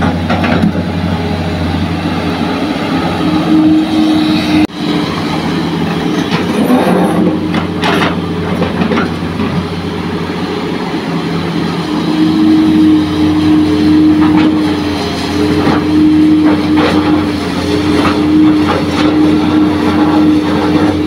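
Hitachi crawler excavator's diesel engine running steadily under load while it works, with a steady higher-pitched tone joining the engine drone for stretches and a few short knocks as soil and bucket drop into the dump truck bed.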